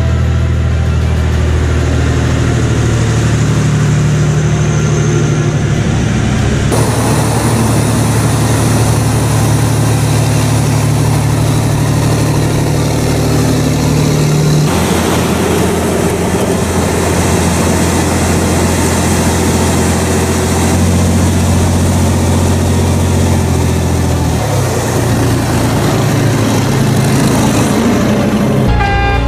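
Engine of a heavy multi-axle mobile missile launcher truck, a large diesel, running steadily at low revs. The engine note changes abruptly twice, about a quarter of the way in and again about halfway.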